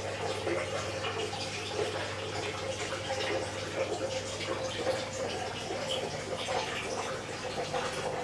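Water in an aquarium trickling and splashing steadily, over a constant low hum.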